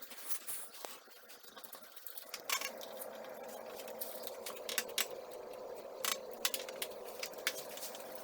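Scattered light clicks and scrapes of a grooved spline roller pressing rubber spline into a window screen frame's channel. A steady hum joins about two seconds in.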